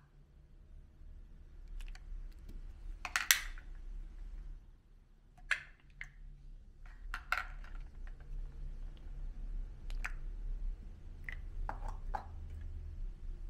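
Gelatin jellies being squeezed out of thin plastic cups and set down on a plate: soft plastic clicks and crinkles, about half a dozen, a second or two apart, over a low steady hum.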